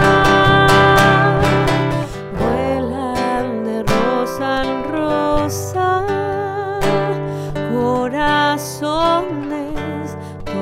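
Acoustic guitar music, plucked and strummed over low bass notes, with a melody line that wavers in vibrato above it from about three seconds in.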